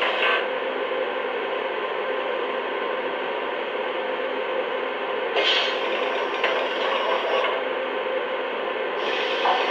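Lionel Visionline GG1 O-gauge model locomotive running on track: a steady mechanical hum and rattle of motors and wheels. A brighter, hissier layer joins at about five and a half seconds for two seconds and again near the end.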